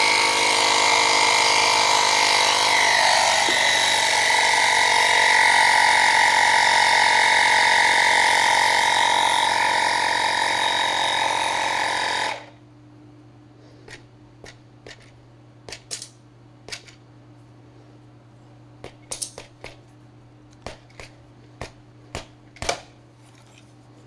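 Portable electric tyre inflator running steadily for about twelve seconds as it pumps up a scooter's inner tube, then cutting off abruptly, as such pumps do once the preset pressure is reached. After that, scattered light clicks and knocks as the wheel is handled.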